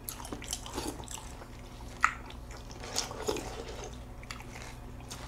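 Milk being slurped from a cereal bowl, small wet sipping and dripping sounds, with a sharp click about two seconds in.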